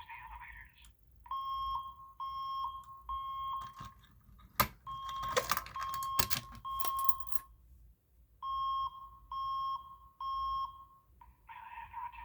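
Voice-evacuation fire-alarm speaker sounding a high electronic tone in groups of three beeps, three groups a second or so apart: the temporal-three evacuation signal between spoken messages. The recorded voice message resumes near the end. A sharp click about halfway through is the loudest sound, followed by a couple of seconds of rattling.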